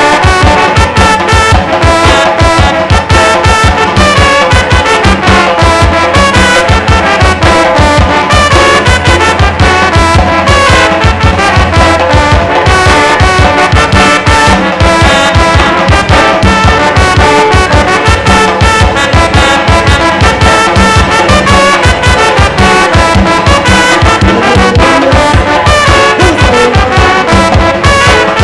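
Tamborazo band playing live: trumpets and trombones carry the tune over the steady, fast beat of the tambora bass drum and cymbal.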